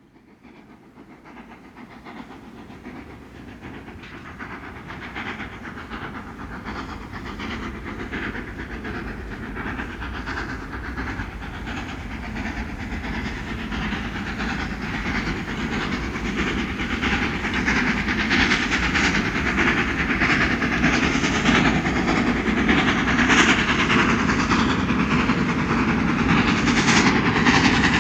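Steam-hauled train approaching from a distance, its running sound growing steadily louder from faint to loud.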